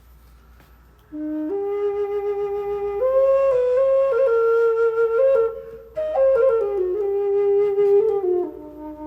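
Low flute played through the studio sound system with reverb added, starting about a second in: a slow line of long held notes stepping up and down. It breaks off briefly past the middle, then settles on a held low note.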